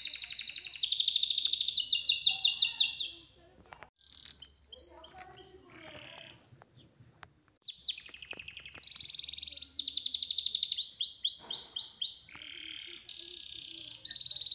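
Songbird singing in runs of fast, high repeated trills, each run at a different pitch. The song stops for a few seconds near the middle, where only a few faint clicks are heard, then starts again.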